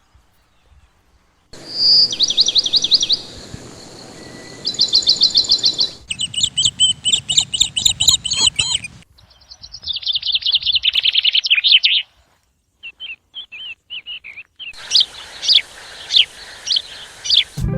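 Songbirds chirping and trilling in rapid repeated notes, in several short segments that begin and end abruptly, some over a steady hiss. The first second and a half is near silence.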